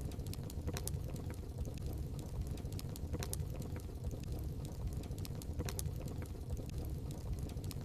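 Wood fire burning in a fireplace, with a steady low rumble and frequent irregular sharp crackles and pops.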